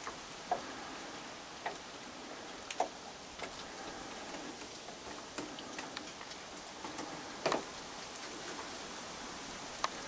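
Steady hiss of rain, broken by scattered sharp clicks and taps, roughly one every second or two. The loudest come about half a second in, near three seconds and about seven and a half seconds in.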